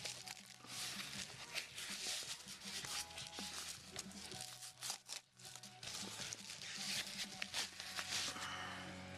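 Plastic packaging crinkling and tearing as a DVD is unwrapped by hand, many small irregular crackles, over steady background music.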